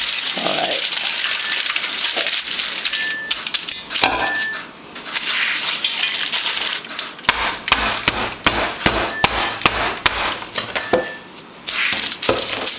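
A steady sizzle of hot frying oil, then from about seven seconds in a quick run of knocks and clinks as a once-fried plantain slice is pressed flat by hand with an improvised tool for tostones.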